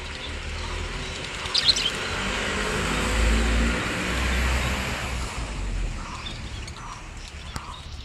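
A motor vehicle passes by, its engine and tyre noise swelling to a peak about three seconds in and fading by about six seconds, while budgerigars chirp, with one loud chirp about one and a half seconds in.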